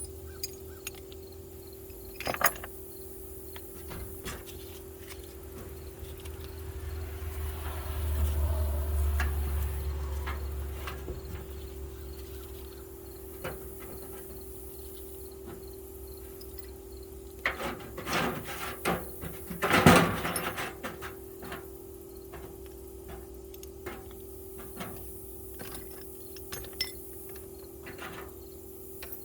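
Scattered knocks and clinks of tools and metal being handled, with a cluster of louder knocks about two-thirds of the way through, over a steady hum. A low rumble swells and fades in the first half.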